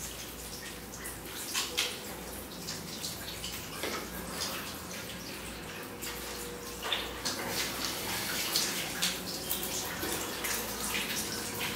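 Shower water running from an overhead rain shower head and splashing over a person's head and body, with irregular splashes that grow louder and busier about two-thirds of the way in.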